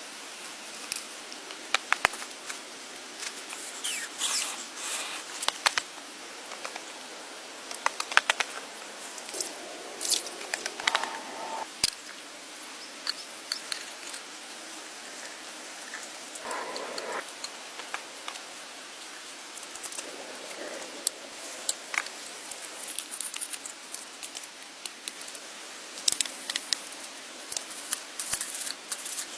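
Irregular sharp clicks, snaps and short rustles of hands handling and cutting material, over a steady background hiss.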